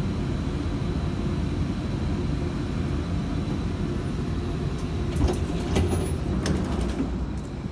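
Tram running, heard from inside the car: a steady low rumble of wheels on rails, with a few sharp knocks in the last couple of seconds.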